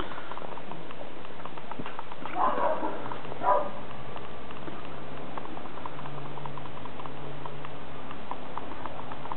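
Pets playing: a steady patter of small ticks, with a few short, louder sounds about two and a half to three and a half seconds in.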